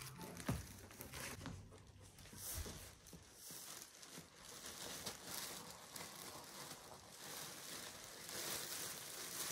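Faint crinkling and rustling of a black plastic trash bag as a golden retriever noses and pushes against it, with a couple of soft thumps early on. The crinkling grows a little louder near the end.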